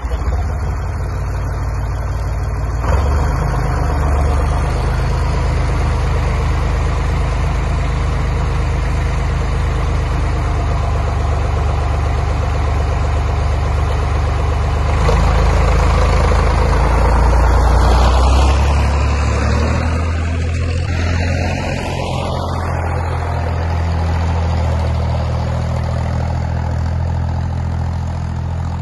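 International Harvester 454 tractor engine running steadily just after starting, then driven; it grows louder about halfway through and eases off as the tractor moves away.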